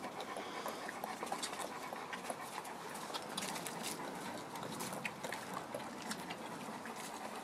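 Six-week-old puppies suckling at a standing mother dog, a steady run of small wet smacking clicks, with the mother dog panting.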